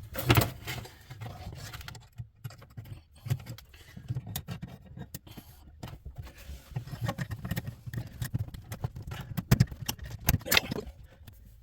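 Electrical cable being worked through the hole of a junction box: irregular scraping and rubbing with scattered clicks of handling, and a few sharp knocks, one right at the start and two near the end.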